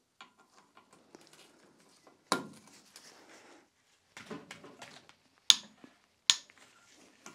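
A hand wrench cracking loose the bolts that hold together the two sections of a Mini Cooper S engine block. Three sharp metallic snaps come as bolts break free: one about two seconds in and two close together near the end. Light clicks of the tool on metal fall between them.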